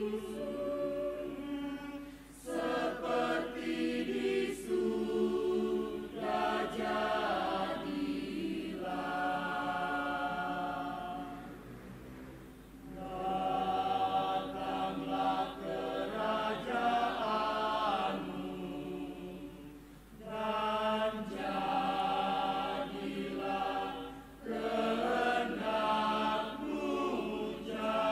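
Mixed choir of male and female voices singing together in long held phrases, with brief breaks between phrases.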